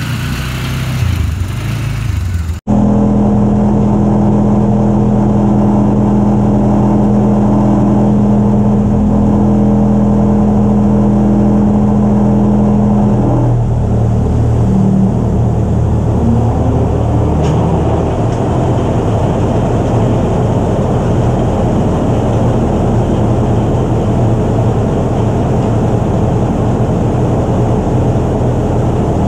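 Ford 8N tractor's four-cylinder flathead engine running steadily at idle, its note changing about halfway through. A different vehicle engine is heard for the first couple of seconds before it.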